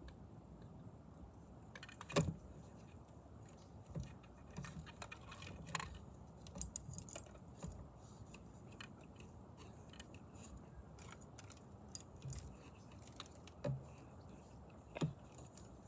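Scattered light clicks, taps and knocks of objects being handled, irregular and a dozen or so in all, the loudest a sharp knock about two seconds in.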